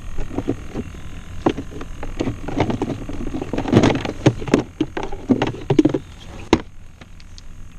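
Irregular knocks, clatters and water splashes from a fishing kayak and its gear on the water. They die down about six and a half seconds in.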